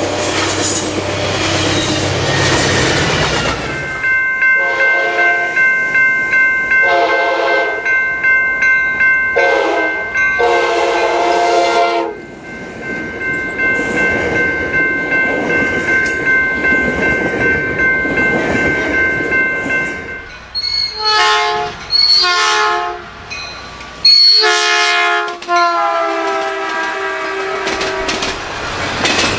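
A train's air horn blows the grade-crossing signal, two long blasts, a short one and a long one, while a level-crossing bell rings steadily. Train noise is heard at the start. More horn blasts follow later, ending in one long blast.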